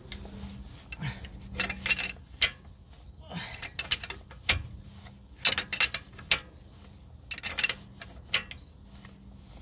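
Ratcheting spanner working the drive shaft's hub nut: a string of sharp metallic clicks coming in irregular clusters.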